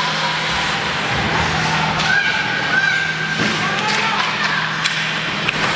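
Ice hockey play in an indoor rink: skates scraping the ice and a few sharp clacks of sticks and puck, with voices calling out around the middle and a steady low hum underneath.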